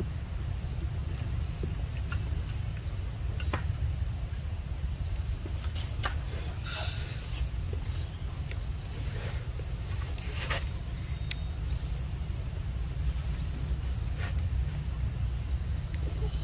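Continuous high-pitched drone of forest insects, with small rising chirps repeating every second or two on top. A steady low rumble runs underneath, and a few faint clicks are scattered through.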